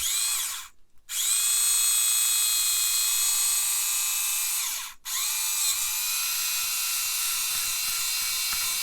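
Small electric hobby drill whining as it bores holes through a plastic model kit part, in three runs: a brief burst, then two longer runs of about four seconds each. Each run spins up to a steady pitch and winds down at the end.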